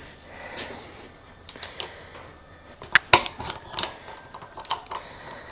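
Irregular metallic clicks and clinks of small parts and tools being handled while a throttle is fitted to a motorcycle handlebar, with the sharpest knocks about three seconds in.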